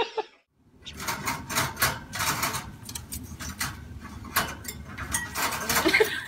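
Irregular clicks and rattles of conures moving in a wire cage, beak and claws knocking on the bars and perch, starting about a second in.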